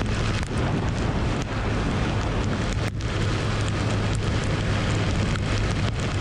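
Riding in heavy rain: wind rushing over the camera microphone, with the BMW S1000RR's inline-four engine holding a steady low drone at cruising speed underneath. Scattered ticks of raindrops hitting the camera run through it.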